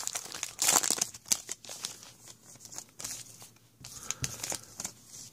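Plastic wrapper of a Topps Magic football card pack being torn open and crinkled: a run of crackles loudest about a second in, thinning to scattered rustles near the end.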